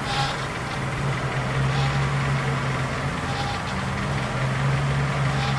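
A GAZelle's Chrysler four-cylinder engine idling steadily, with a short higher sound repeating about every second and a half. The constant drone of the electric fuel pump is gone now that the clogged fuel filters are replaced, leaving only brief sighs from the pump.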